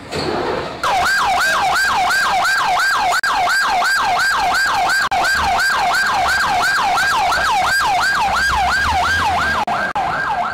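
Fire engine's electronic siren on a fast yelp, its pitch sweeping up and down about three times a second, starting about a second in.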